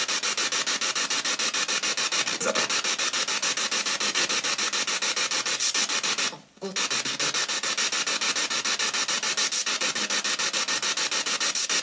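Spirit box (ghost box) sweeping through radio frequencies, played through a small JBL speaker: loud static hiss chopped into rapid, even pulses several times a second, with a short break about six and a half seconds in.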